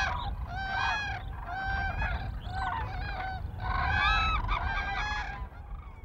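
A group of common cranes calling: repeated trumpeting calls from several birds, overlapping one another, dying away near the end.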